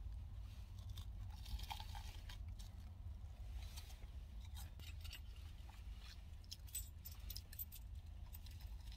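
Crunching and chewing of a crisp fried spiral potato on a skewer, heard as scattered small crackles over a steady low hum inside the car.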